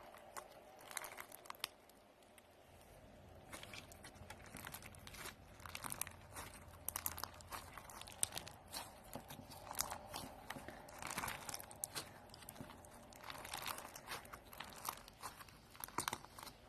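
Irregular crinkling and crunching close to the microphone, many small crackles and clicks, sparse for the first few seconds and then much busier.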